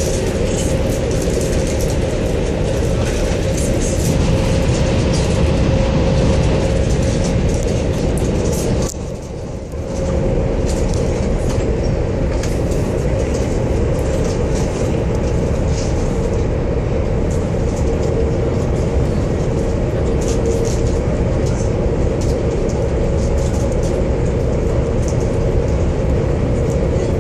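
A high-speed train running at speed, heard from inside the passenger cabin: a steady rumble with a constant hum. The sound drops briefly for about a second roughly nine seconds in, then returns.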